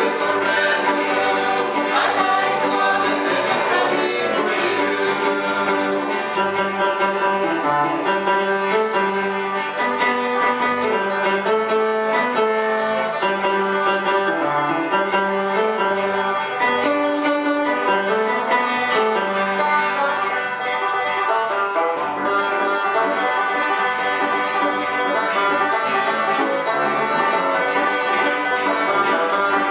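Live bluegrass gospel band playing a song: banjo, acoustic guitar, electric bass and piano with a steady beat, and voices singing.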